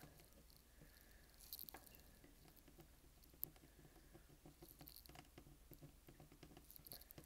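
Near silence, with scattered faint light ticks and scratches from a soldering iron tip being stroked along a calculator screen's ribbon cable to reflow its heat-seal connection.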